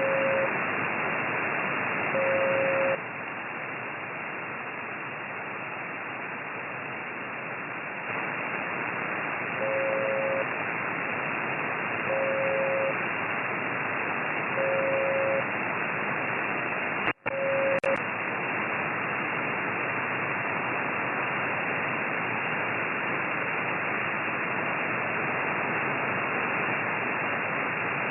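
Amateur radio receiver on the 6-metre (50 MHz) band putting out a steady hiss of band noise, the noise problem being chased. A steady tone sounds in short dashes about every two and a half seconds, the hiss drops a little about three seconds in, and there is a brief dropout with a click about seventeen seconds in.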